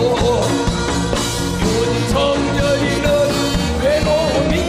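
A male Korean traditional-style singer singing a folk tune with satirical lyrics into a microphone, backed by a live rock band with a steady beat.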